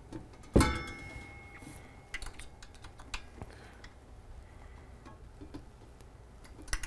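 A sharp metal-on-metal clank about half a second in that rings briefly, then scattered light clicks as a hex wrench and screw work against the stainless steel housing of the espresso machine.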